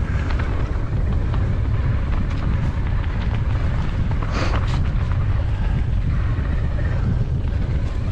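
Wind buffeting the microphone of a moving rider: a steady low rumble, with a couple of short rattles about four and a half seconds in.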